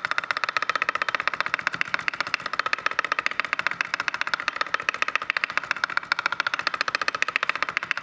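Chef's knife rapidly chopping fresh dill on a wooden cutting board: a fast, even rhythm of many knife strikes a second, kept up without a break.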